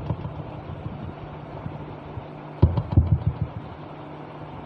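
A wireless microphone being handled and bumped, its thumps and knocks coming through the connected woofer speaker in a quick cluster a little past halfway, over a steady low hum from the speaker setup.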